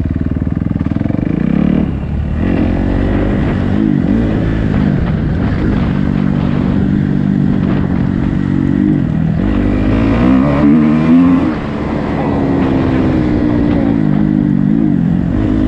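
Dirt bike engine ridden over a rough track, its pitch rising and falling over and over as the throttle opens and closes. It eases off briefly about two seconds in and again about three-quarters of the way through.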